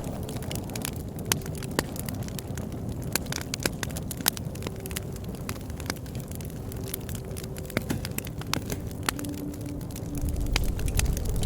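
Bonfire crackling: irregular sharp pops and snaps from burning wood over a steady low rush of flame.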